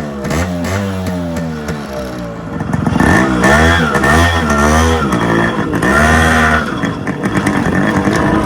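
Yamaha RX135 two-stroke single-cylinder engine revving up and down through a modified aftermarket muffler. The pitch rises and falls in repeated swells, and it gets louder from about three seconds in.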